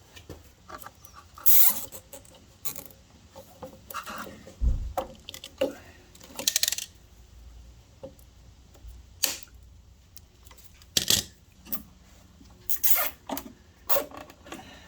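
Irregular small clicks, knocks and scrapes of hands and tools working on a lawnmower's fuel hose and its fittings.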